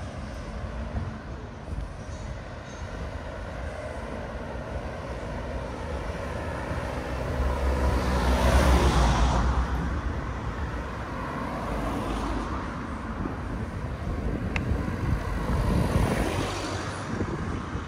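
Road vehicles passing close by over a steady traffic rumble, the loudest going by about halfway through and another near the end.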